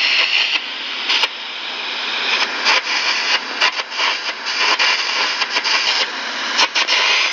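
Air carbon arc gouging torch (Arcair) cutting into metal: a steady, loud hiss of the air jet and arc with frequent sharp crackling pops.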